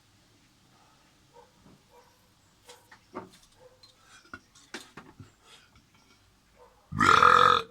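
A person's loud burp, lasting well under a second, near the end. Before it there are only faint scattered clicks and knocks.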